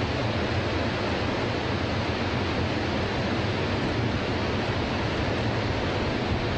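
Niagara Falls: a steady, unbroken rush of water plunging over the falls, with a deep rumble underneath.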